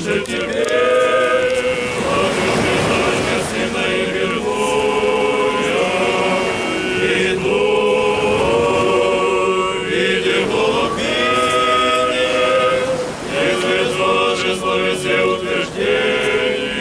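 Orthodox church choir singing a liturgical chant a cappella, several voices holding long notes and moving together in steps.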